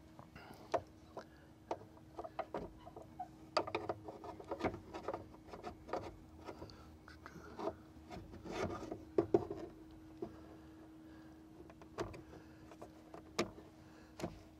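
Plastic side-view mirror base and its gasket clicking, knocking and rubbing against the door of a 1994 Ford F-150 as the mirror is worked into its mounting hole. The handling noise is busiest in the middle, then a few single knocks follow near the end.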